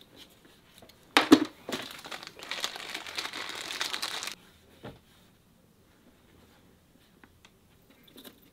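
Plastic packaging crinkled and torn open, most likely the wrapper of a cleaning wipe: a sharp rip about a second in, then dense crinkling for about three seconds that stops suddenly.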